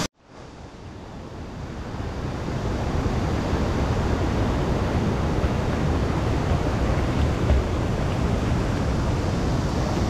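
Mountain stream rushing over granite rocks, swollen and fast after rain: a steady rush of water with a low rumble. It fades in over the first couple of seconds.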